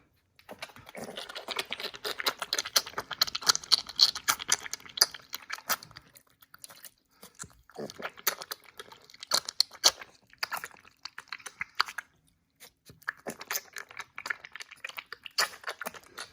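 Piglet drinking goat's milk: rapid wet smacking and sucking in three spells, with short pauses between them.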